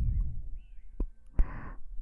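Close-miked breath and kiss sounds into a KU100 binaural dummy-head microphone: a breath with low rumble from air hitting the mic, a small lip-smack click about halfway through, then a sharper kiss click followed by a short breathy exhale.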